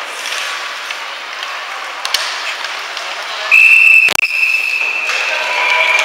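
Rink ambience with a few puck and stick knocks, then about three and a half seconds in a loud, steady, high-pitched whistle blast, cut through by a sharp knock. A fainter steady tone carries on to the end.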